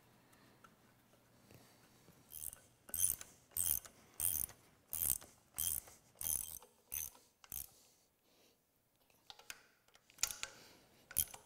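Hand ratchet wrench clicking in short strokes, about ten in a row at a little under two a second, then a few more near the end, as the water pump bolts are run down.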